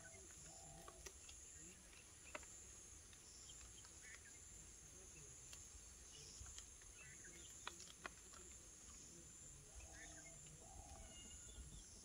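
Near silence outdoors: a steady high insect drone with scattered faint bird chirps, and a few sharp clicks as parakeets crack sunflower seeds.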